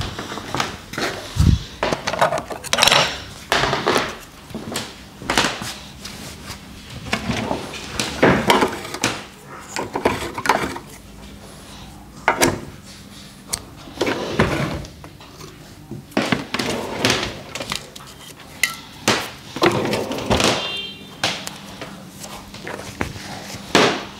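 Irregular knocks, clicks and rustles of a barber handling his tools and shaving gear, over a faint steady hum.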